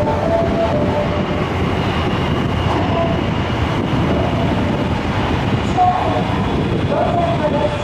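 Osaka Metro Midosuji Line subway train running alongside the platform in an underground station: a loud, steady rumble of wheels and motors, with a thin high tone joining about two seconds in.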